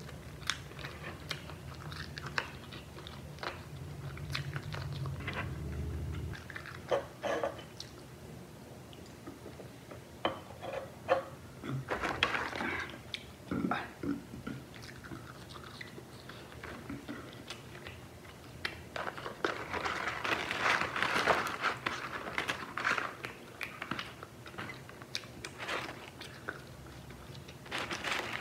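Close-miked chewing and biting of KFC fried chicken and then french fries, with wet mouth sounds and irregular crunches.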